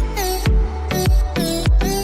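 Electronic dance music with a heavy kick drum on a steady beat, about three beats every two seconds, under pitched synth tones.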